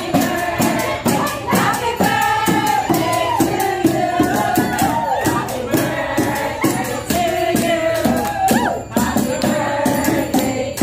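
Celebration song: voices singing over a steady beat with a jingling, tambourine-like rattle.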